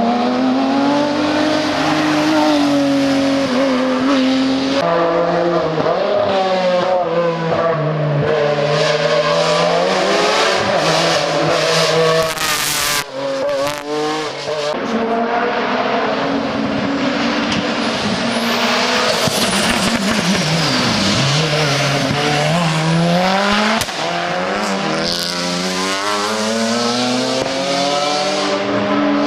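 Racing car engines at full song on a hill climb, the pitch climbing and dropping over and over with throttle and gear changes, with a few abrupt switches from one stretch to another.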